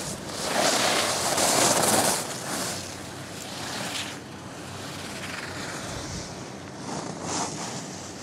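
Alpine skis carving on hard snow through giant-slalom turns: a loud scraping hiss from the edges about a second in, then quieter scrapes at the next turns around four and seven seconds.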